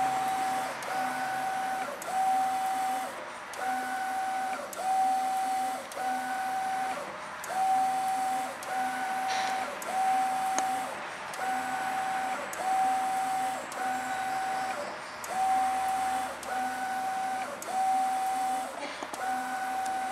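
Mimaki GP-604 direct-to-garment printer printing on a t-shirt. Its print-head carriage sweeps back and forth with a whining motor tone that switches on and off with each pass, repeating steadily about once a second.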